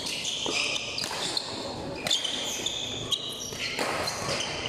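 Badminton rally: sharp racket strikes on the shuttlecock, a few times in a few seconds, with sneakers squeaking on the court mat as the players move, and voices in the hall.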